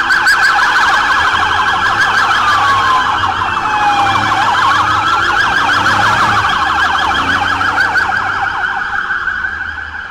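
Several police vehicle sirens sounding at once as a convoy of military police SUVs drives past, mostly a fast warbling yelp, with one slower wail that falls and then rises a few seconds in. The sirens fade near the end.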